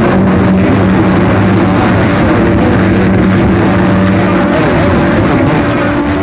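CB radio receiver picking up a very strong keyed-up signal, its meter pinned: a loud, steady rush of noise with low humming tones that come and go.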